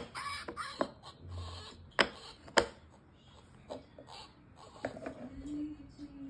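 Wooden puzzle pieces knocking against a wooden puzzle board: a few sharp clacks, the loudest at the start and at about two and two and a half seconds in. A low, steady hum starts about five seconds in.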